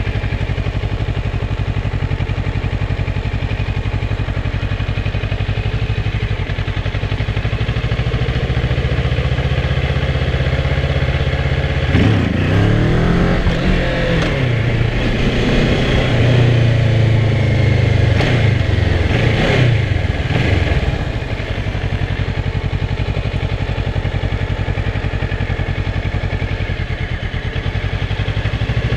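Kawasaki ER-6f's 649 cc parallel-twin engine running steadily at low revs, then about twelve seconds in the throttle is opened and closed several times, with the engine note rising and falling for about nine seconds before it settles back to a steady low drone.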